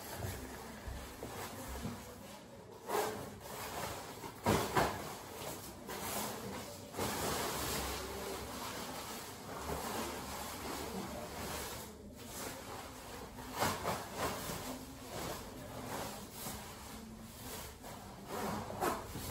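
A synthetic-fabric rain jacket rustling and swishing as it is handled and pulled on over the head, with a few louder swishes of the fabric along the way.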